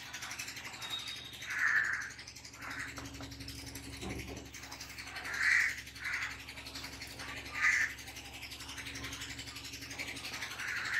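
Felt-tip marker squeaking on a whiteboard in about four short strokes while a diagram is drawn and labelled.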